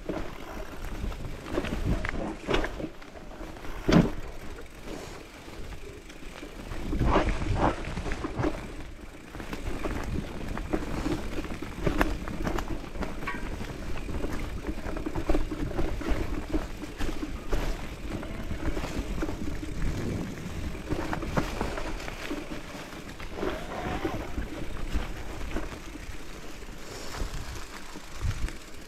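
Mountain bike riding over a rough trail: a steady rumble of tyres on dirt and roots, broken by many sharp knocks and rattles from the bike as it hits bumps, the loudest about four seconds in.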